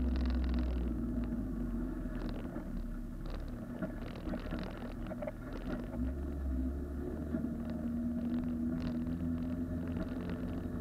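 Honda Civic engine running at low revs, heard from inside the cabin as the car rolls slowly, with many short clicks and rattles throughout. The deepest part of the engine note drops away about a second in and comes back about six seconds in.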